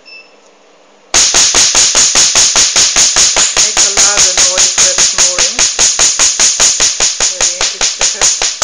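Tattoo-removal laser firing in rapid, evenly spaced snapping pulses, about six a second, starting suddenly about a second in.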